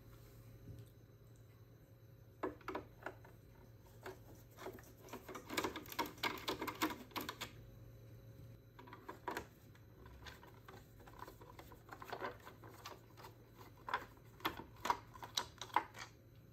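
Irregular runs of light clicks and taps of a screwdriver working on a robotic pool cleaner's plastic top plate. The clicks come in several bunches, busiest in the middle and near the end.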